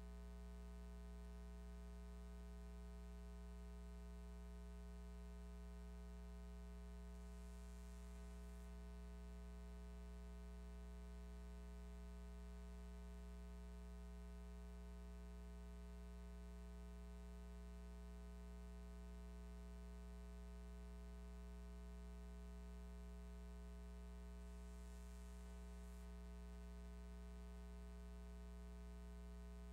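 Near silence: a steady low electrical hum with faint hiss, and two brief faint swells of high hiss.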